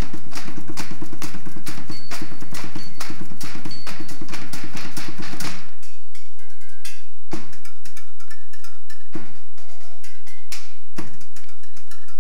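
Found-object percussion: a fast, dense clatter of strikes over a steady low drone, breaking off about halfway into single loud clashes of round lids struck together, roughly every two seconds, each leaving a metallic ring.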